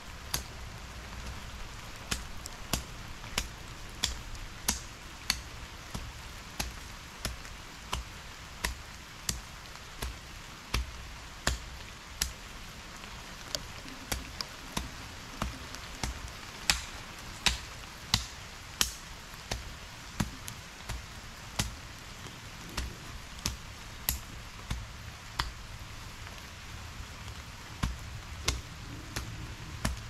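Long-handled garden hoe chopping into weedy soil: short sharp strikes in a steady rhythm, about three every two seconds.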